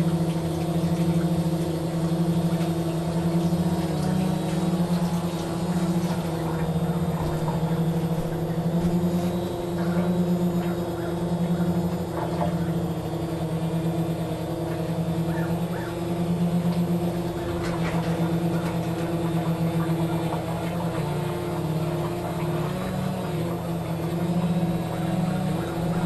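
Quadcopter's four brushless motors and propellers humming steadily in flight, the pitch wavering slightly as the throttle shifts.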